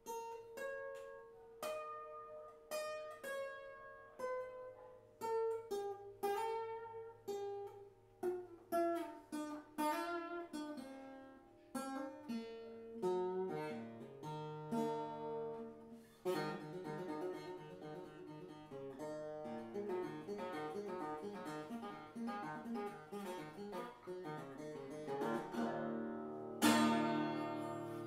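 Improvised solo acoustic guitar on a koa-wood guitar: single plucked notes at first, then a faster, denser run of picked notes from about halfway, with a loud strum near the end.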